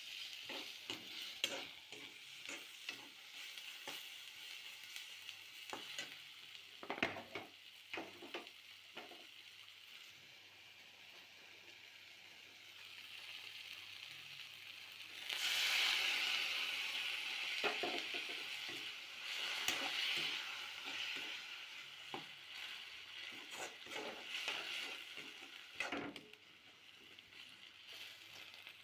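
Food sizzling in hot oil in a pan while a spatula stirs it, with repeated scrapes and knocks against the pan. The sizzle grows louder about halfway through.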